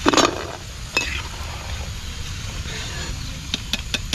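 Slotted steel ladle scraping and knocking against an iron frying pan and a steel plate as deep-fried snacks are lifted out of hot oil. There is a loud clatter right at the start, a sharp click about a second in, and a few lighter clicks near the end, over a faint hiss of frying oil.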